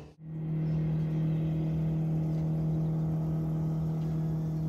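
Sailboat's engine running steadily with an even low hum, starting a moment in after a brief gap.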